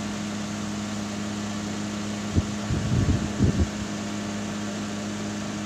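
Automatic transmission fluid exchange machine running with a steady hum while it pumps old ATF out of the transmission and new fluid in, in equal exchange. A few dull low thumps about halfway through.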